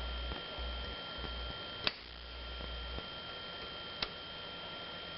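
Two light, sharp clicks about two seconds apart over a steady low electrical hum and a faint high whine.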